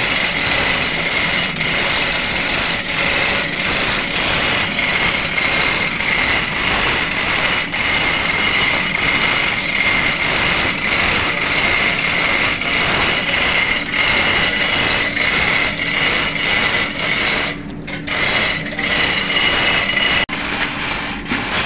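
Steady, loud running noise of engine-room machinery, with a high whine and a lower hum held throughout. It dips briefly about three-quarters of the way through.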